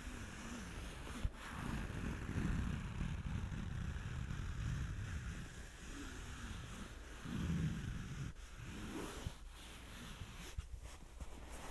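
Close-miked ASMR rubbing on a microphone: muffled, rustling scrapes that swell and fade slowly, with one small sharp click about a second in.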